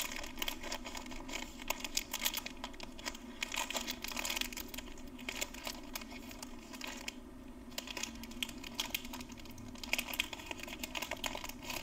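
Plastic snack wrappers crinkling and rustling as they are pulled open by hand: an outer packet, then a small inner wrapper. The crackles come in irregular bunches throughout.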